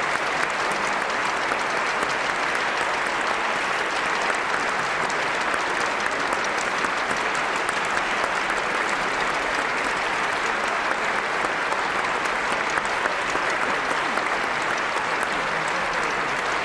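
Audience applauding steadily, a dense, even clapping of many hands that holds level without letting up.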